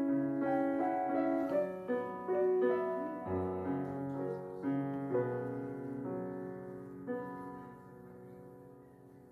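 Background piano music, a slow run of held notes that fades out near the end.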